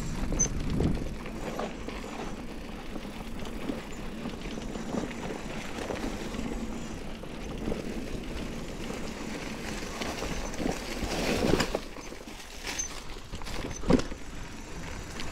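A mountain bike riding over a rocky dirt trail: steady tyre rumble and rattling over the rough ground. It swells louder near eleven seconds, with a sharp knock about fourteen seconds in.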